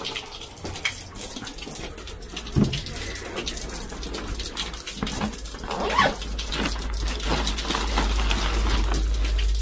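A dog barking a few times from inside the house behind the front door, most loudly about six seconds in, with a single thump about two and a half seconds in. Rain patter and a low wind rumble on the microphone underneath, the rumble growing stronger after about six seconds.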